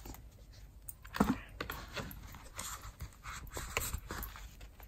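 Hands handling a leather card holder and its cardboard box and dust bag: irregular rustles and light clicks, with one sharper knock about a second in.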